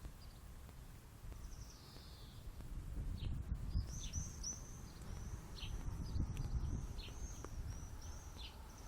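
A small bird chirping: one falling note, then a quick run of short high chirps repeated over and over, over a low rumble.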